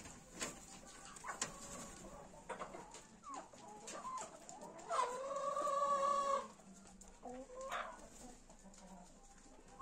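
Chickens clucking, with one long, loud call held for about a second and a half about five seconds in.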